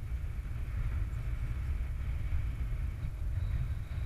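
Wind buffeting the camera microphone: an uneven low rumble with a faint hiss over it.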